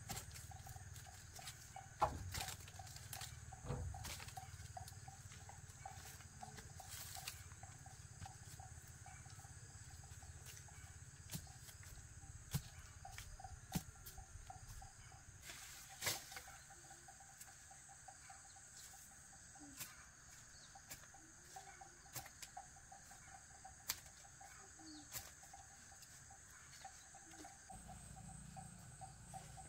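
Insects chirring steadily in a continuous chorus, with scattered faint clicks and knocks; the clearest knocks come about two seconds in and again about sixteen seconds in.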